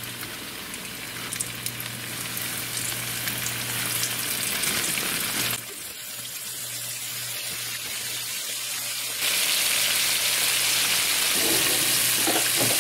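Flour-and-cornmeal-breaded catfish pieces sizzling and crackling as they fry in about half an inch of hot canola oil in a pan. The frying gets louder about nine seconds in.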